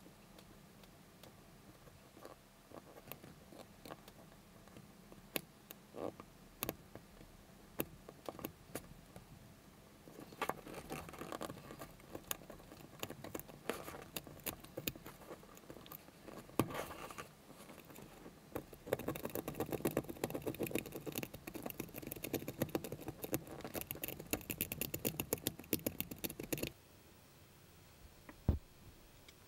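Hobby-knife blade cutting and scraping into a wine cork: scattered small clicks at first, then steadier scraping about a third of the way in, building into fast, continuous rasping strokes that stop abruptly near the end.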